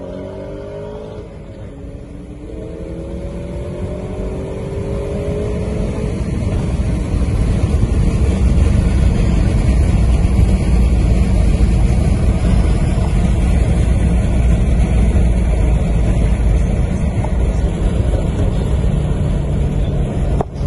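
Car engines accelerating hard at full throttle, their pitch rising through two gear pulls in the first six seconds, then a loud, steady low rumble as speed builds.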